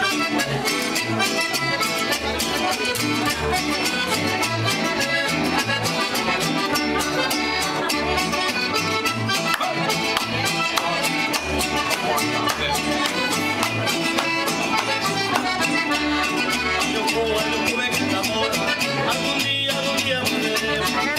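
Live band playing Latin music led by an accordion, with a steady beat.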